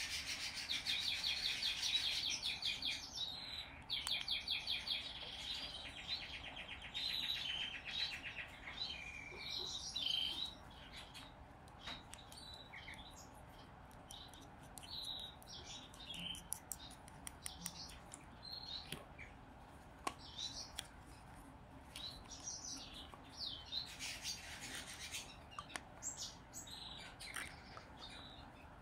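Zebra finch × owl finch hybrid chick giving loud, rapid, buzzy begging calls for about the first ten seconds, a hungry nestling asking to be fed. After that only scattered short chirps are left, mixed with light clicks and rubbing from a syringe and stick worked in a small cup of hand-feeding formula.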